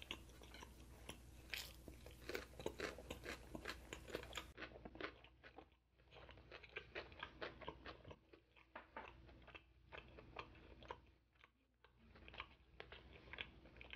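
Close-miked chewing of food with many small crisp crunches and mouth clicks, starting on crunchy pickled radish. About four and a half seconds in the sound turns duller, as if from an edit.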